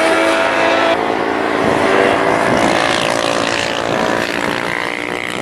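Small-displacement supersport racing motorcycles (300–400 cc) running at high revs on the circuit, several engines heard at once, their pitch rising and falling. The sound changes abruptly about a second in.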